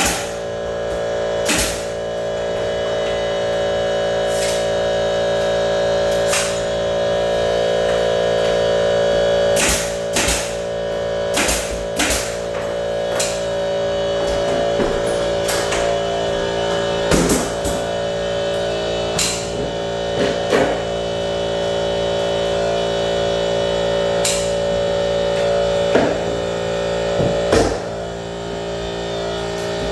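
Background rock music with guitar over a steady hum, with a dozen or so sharp knocks at irregular intervals.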